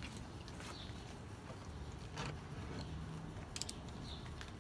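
A few faint, light clicks of small nuts and bolts being handled, a cluster of them near the end, over a low steady hum.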